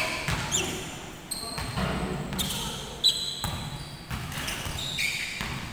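Basketball game on a hardwood court: the ball bouncing, sneakers squeaking on the floor, and players calling out. A sharp knock stands out about three seconds in.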